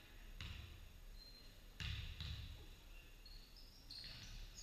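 Basketball bouncing on a gym court: a few thuds, the loudest just under two seconds in. Sneakers give short high squeaks on the floor.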